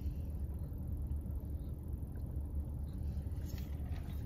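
Steady low rumble inside a parked car's cabin, typical of the engine idling.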